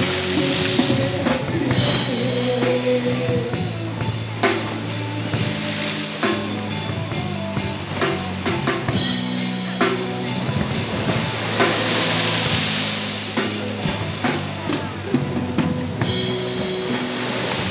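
Music with a drum-kit beat and steady bass and chord tones, over the hiss of breaking surf that swells about twelve seconds in and again near the end.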